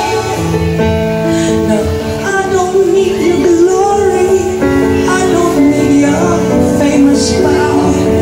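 Live pop music: a woman singing long, held notes into a microphone over keyboard accompaniment.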